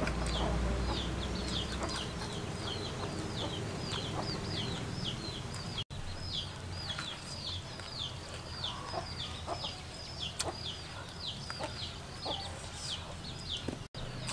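Chickens peeping: a steady string of short, high, falling calls, about three a second.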